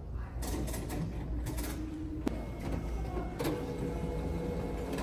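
Xerox self-service copier running a print job: a steady mechanical hum with short clicks and a sharp click a little over two seconds in, as the machine feeds paper out to its tray.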